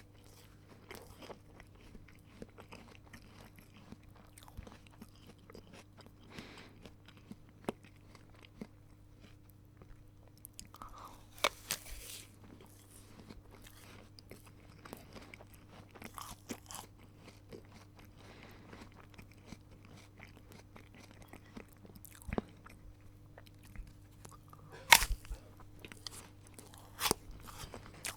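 A person eating a crisp apple close to the microphone: bites that snap through the flesh, then crunchy chewing, over a faint steady hum. The loudest bites come about 12, 25 and 27 seconds in.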